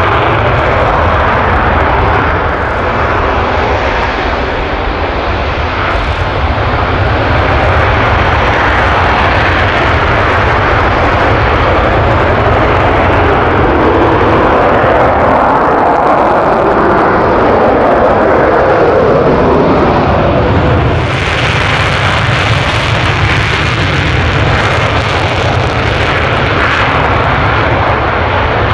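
Eurofighter Typhoon's twin Eurojet EJ200 turbofans at takeoff power: a loud, steady jet roar as the fighter rolls down the runway and lifts off. About two-thirds of the way through the roar turns brighter and hissier.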